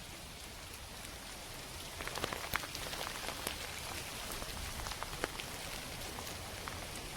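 Rain falling steadily, with many individual drops ticking sharply close by, the drops growing more frequent about two seconds in.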